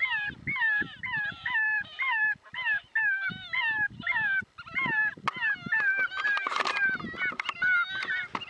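Electronic predator call playing a series of high, wavering animal cries, about two a second, used to lure coyotes in. A burst of rustling is heard over it around the middle.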